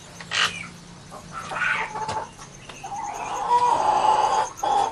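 Chickens calling on a poultry farm: a short sharp call, a few more calls, then a longer drawn-out call in the second half.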